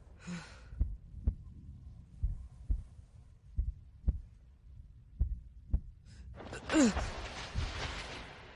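Heartbeat sound effect: slow low thuds in lub-dub pairs, repeating about every second and a half. Nearly seven seconds in, a loud rushing whoosh with a falling tone cuts across the beat and fades away.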